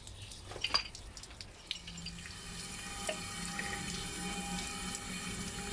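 Water running from a tap, steady and gradually building, with a faint steady hum beneath it. A few light clicks come just before the flow sets in.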